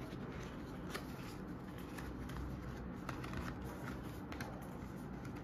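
Lid of a cardboard product box being lifted off and set aside, with light papery rustling and a few sharp taps and clicks of card, over a low steady background hum.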